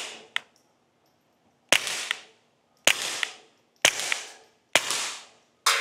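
Suppressed .22 LR pistol fire: a SIG P322 with a Dead Air Mask HD suppressor shooting Winchester Super Suppressed subsonic rounds, five shots about a second apart. Each shot is a sharp crack with a short decaying tail.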